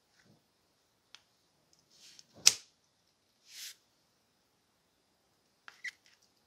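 Handling noise of an aluminum grapefruit corer and its wooden handle: soft rubs and light clicks, with one sharp click about halfway through as the handle is pushed into the corer's metal socket. A couple of small clicks come near the end as pliers are brought to the socket.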